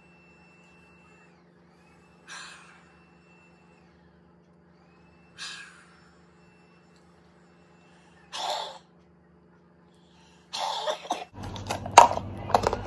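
Cystic fibrosis airway-clearance breathing: three sharp breaths forced out through the mouth, about three seconds apart, to loosen mucus from the lungs. About ten seconds in comes a louder cough, then clatter and knocks of handling close to the microphone near the end.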